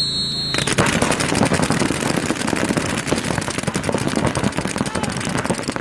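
A short high-pitched start signal tone, cut off after under a second, then a dense, continuous rattle of paintball markers firing rapidly from many players at once as the point begins.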